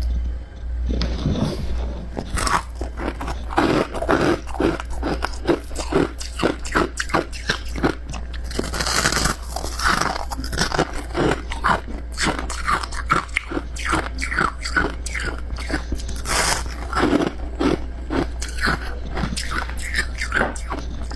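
Close-miked biting and chewing of powdery freezer frost (snow ice): a dense run of soft crunches, several a second, over a steady low hum.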